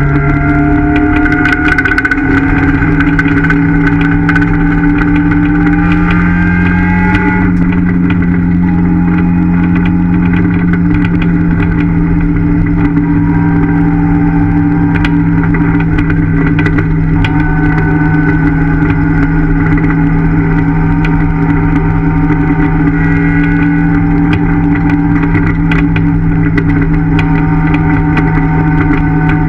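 Rally-prepared Ford Fiesta ST's engine running steadily at cruising speed, heard from inside the caged cabin. Its pitch rises slightly over the first few seconds and shifts about seven seconds in, then holds level.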